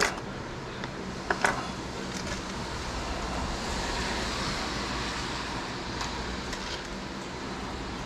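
A few sharp metallic clicks about a second in as the metal jig-head mould is handled, over a steady hiss that swells and fades in the middle.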